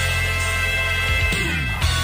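Instrumental outro music with sustained steady low bass notes.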